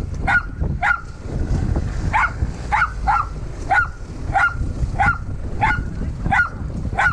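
A dog barking over and over in a steady rhythm, about one bark every two-thirds of a second, with a short pause about a second in.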